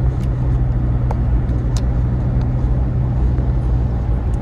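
A car in motion, heard from inside the cabin: a steady low engine and road rumble, with a few faint clicks.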